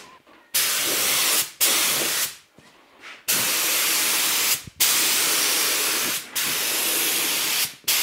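Compressed air hissing from a handheld air tool on a shop air hose, released in five separate blasts of about a second each with short breaks between them.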